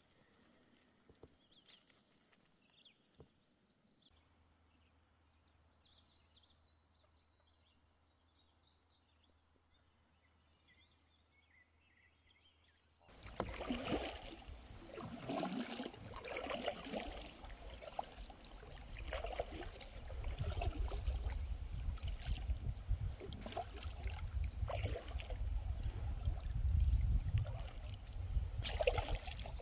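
Faint bird chirps over near silence. About thirteen seconds in, a kayak paddle starts dipping and splashing in steady strokes, with water trickling off the blades, over a low rumble.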